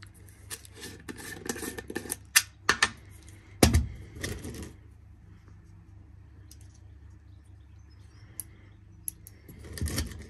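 Metal tin of .22 air-rifle pellets being opened and handled, its lid scraping and clicking and the loose pellets rattling, with a loud knock about four seconds in. After a quieter stretch come a few small clicks as pellets are fitted into a rotary magazine, and a short rattle of fingers in the pellet tin near the end.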